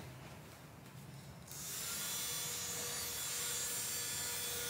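A click, then about a second and a half in a small handheld electric fan starts up and runs steadily: a rush of air with a thin motor whine in several tones.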